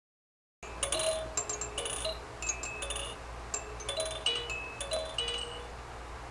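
Tinkling chimes, struck at irregular moments, each ringing on briefly, starting about half a second in after dead silence, over a faint steady low hum.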